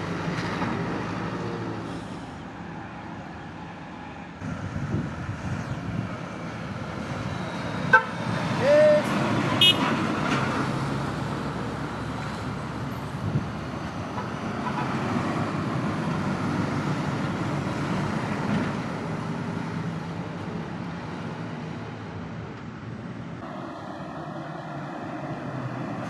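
Road traffic passing: engine and tyre noise of passing vehicles, with brief horn toots about eight and ten seconds in.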